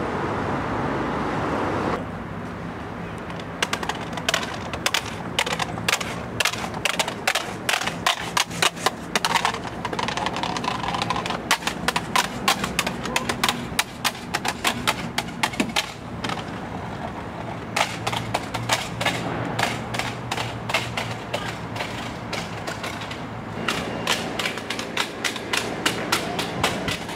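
A cheap plastic-cased digital multimeter clattering down stone steps in a long run of quick, uneven knocks and clicks, a few a second, starting a few seconds in.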